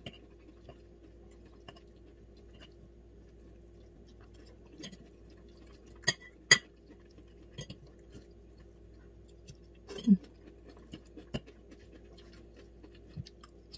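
Metal fork clinking and scraping against a ceramic bowl during eating, a few sharp scattered clinks, the loudest about six and a half seconds in, with soft chewing between them.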